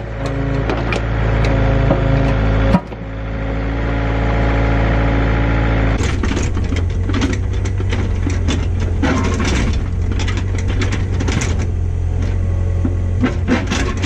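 An engine running steadily under load while a rock is moved, with repeated knocks and clatters over it from about six seconds in.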